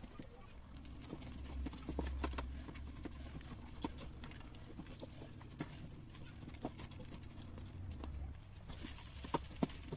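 Wooden spatula stirring raw rice in oil in a rice cooker's nonstick inner pot, sautéing the rice before the water goes in: irregular light clicks and scrapes as it knocks against the pot, with a few sharper knocks near the end.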